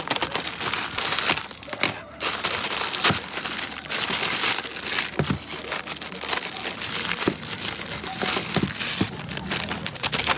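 Parcel packaging crinkling and rustling as it is handled and opened by hand: a dense run of crackles with a brief pause about two seconds in.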